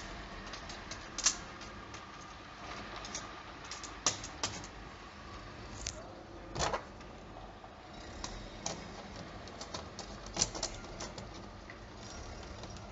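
Scattered light clicks and taps of small metal window-hardware parts being handled as the handle receiver is screwed onto the aluminium drive rod, with a few sharper knocks now and then.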